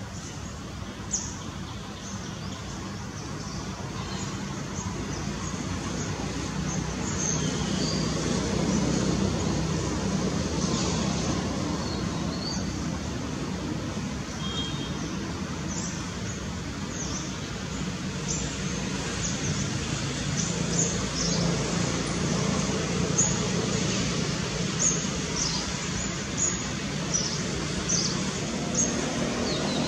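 Steady road-traffic noise that swells and eases, with small birds giving short high chirps, more often in the second half.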